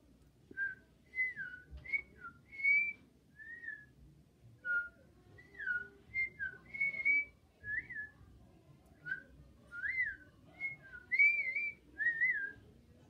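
Whistling: a string of short, clear notes that slide up and down in pitch, with brief gaps between them, in a loose tune-like run.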